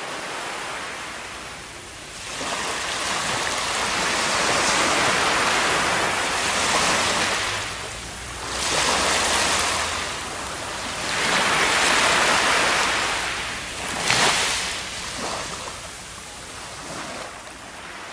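Surf washing up a sandy beach, swelling and falling back in several surges a few seconds apart, with a brief sharper surge about fourteen seconds in.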